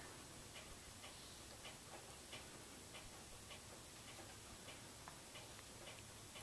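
Faint, regular ticking, a tick roughly every half second, over quiet room tone.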